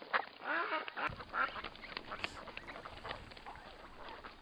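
Ducks quacking, a run of short repeated calls, loudest in the first second or so and fainter after.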